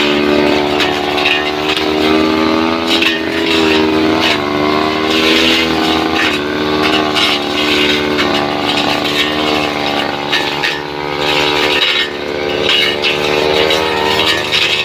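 Two-stroke brush cutter running at high revs while cutting, its pitch repeatedly dipping and recovering as the blade takes load, with bursts of rasping noise as it bites into grass and wood.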